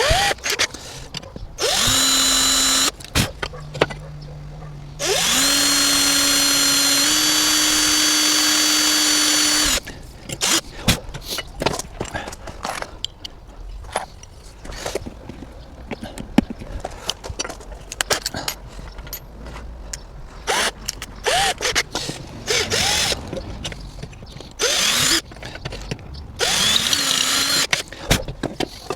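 Power drill drilling holes in solar panel mounting brackets: several runs, the longest about five seconds, its motor speed stepping up partway through, with clicks and handling knocks between the runs.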